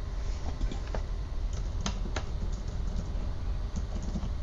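Typing on a computer keyboard, heard as a handful of separate sharp key clicks, over a steady low hum.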